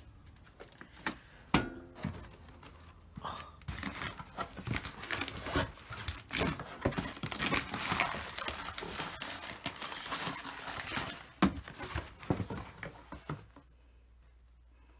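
Cardboard shipping box being opened by hand and its white packing paper crinkled and pulled aside. A few knocks come first, then a long stretch of paper rustling that stops shortly before the end.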